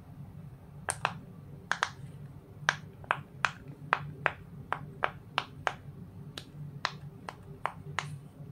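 Silicone pop-it bubbles on a phone case being pushed in one after another with the fingers, each giving a sharp little pop, about two or three a second, starting about a second in.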